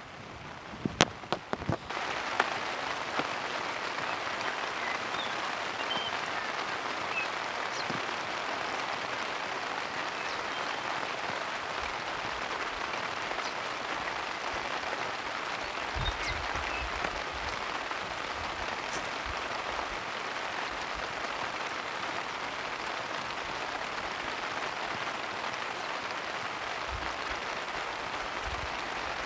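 Steady heavy rain coming down, setting in suddenly about two seconds in after a few sharp clicks and rustles.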